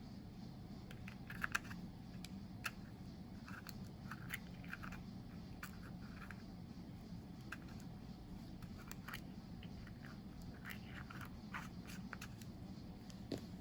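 Scattered small clicks, crinkles and scrapes of nail-product packaging being handled and opened, with a few sharper ticks about a second and a half in, over a steady low hum.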